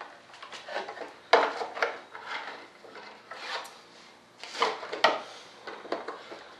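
Scattered metallic clicks, knocks and rubbing as the landing gear leg and retract mechanism of a model jet are swung by hand and checked for travel and locking, with the loudest knocks about a second and a half in and again near five seconds.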